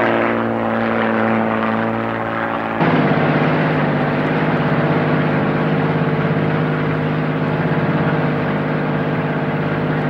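Single-engine propeller light aircraft in flight, its engine giving a steady drone. About three seconds in the sound cuts abruptly to a lower, steadier drone.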